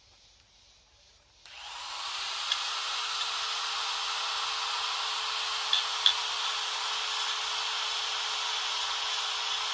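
A handheld power tool switches on about a second and a half in and runs steadily with a whine, scraping away the hard citrus wood of an orange-tree bonsai. A few sharp clicks come through it.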